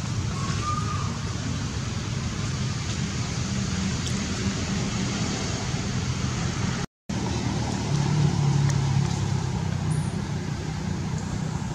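Steady outdoor background noise: a continuous low rumble with hiss, broken by a split-second gap of silence about seven seconds in.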